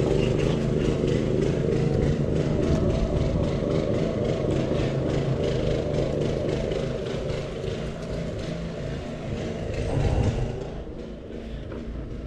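Car driving on the road: steady engine hum and tyre and road noise, with a brief louder swell about ten seconds in before it eases.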